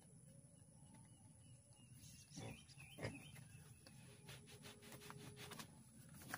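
Near silence: faint outdoor ambience with a couple of soft knocks and a faint held tone.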